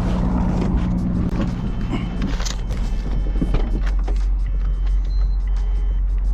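Car engine and road noise, a steady low drone, with background music playing over it.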